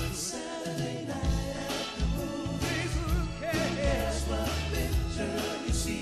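Soul music performed live: a male singer's voice on long, wavering held notes over backing music with a steady bass and drum beat.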